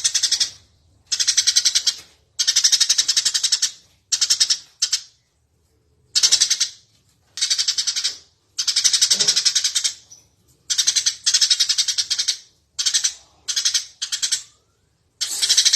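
Eurasian tree sparrow chirping vigorously: rapid chattering in bursts of one to two seconds, separated by short pauses.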